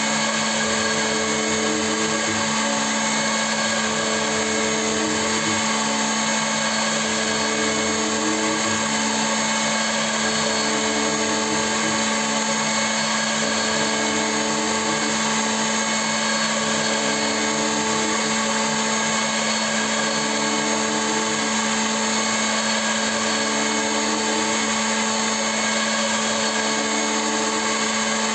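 CNC milling machine running steadily, with a constant motor whine and a second tone that comes and goes every two to three seconds.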